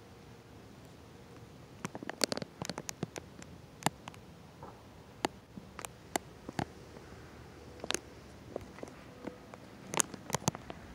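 Irregular sharp ticks from the recording phone's case as the phone is handled, starting about two seconds in and bunched in quick runs, over a faint steady hum.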